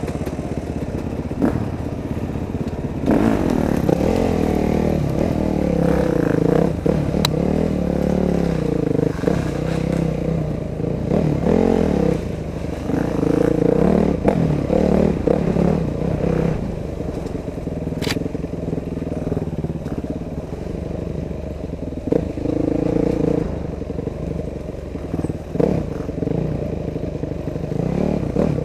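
Dirt bike engine running as the bike rides a trail, its pitch rising and falling again and again as the throttle is worked. A few sharp clicks and some clatter come through.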